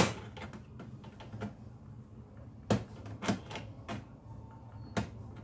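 Pliers clicking and knocking against a laptop's hinge as the tight hinge is loosened: one sharp click at the start, then a few scattered clicks and taps.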